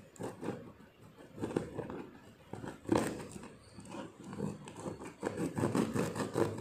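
Kitchen knife slitting and scraping through packing tape along a cardboard box seam, the tape tearing in a run of uneven rasping strokes, loudest about three seconds in.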